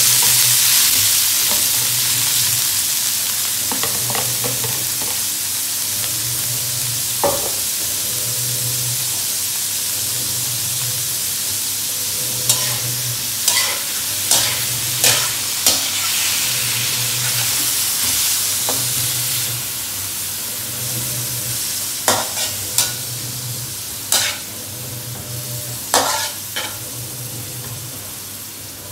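Diced raw pork sizzling loudly in a hot wok with a little oil, the sizzle starting the moment the meat goes in and slowly easing off. A spatula scrapes and clacks against the wok now and then, more often in the second half.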